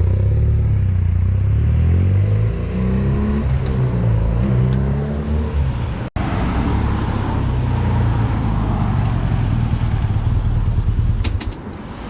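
BMW R1200GS Adventure's flat-twin engine running as the bike is ridden, its pitch rising and falling through the gears. About six seconds in the sound cuts out for an instant, then a steadier engine note follows, dropping away near the end.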